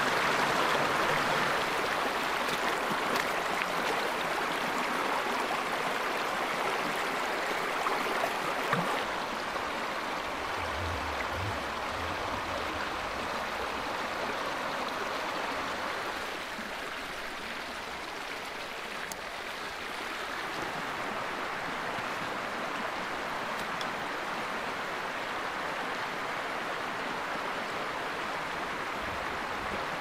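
Shallow mountain stream rushing over rocks: a steady rush of flowing water, a little quieter after about sixteen seconds.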